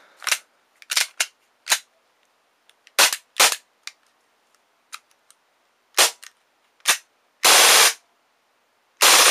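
Tokyo Marui G18c gas blowback airsoft pistol firing: a series of sharp single cracks at uneven intervals, then two louder half-second blasts near the end.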